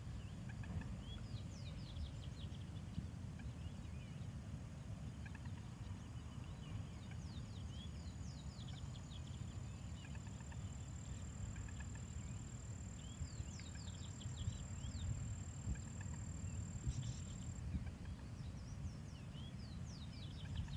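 Outdoor ambience: a steady low rumble with many short bird chirps and peeps scattered throughout, and a faint thin high whine through the middle stretch.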